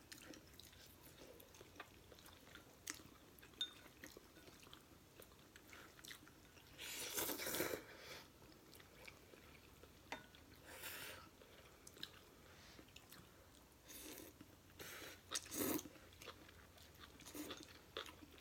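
Faint close-up eating sounds: chewing mouthfuls of instant noodles, with a handful of short louder bursts, the strongest about seven seconds in.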